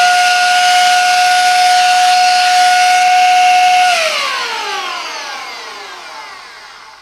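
Silvercrest SHM A1 mini cordless handheld vacuum cleaner's motor running with a steady high whine and air hiss, then switched off about halfway through and spinning down, its pitch falling as it fades.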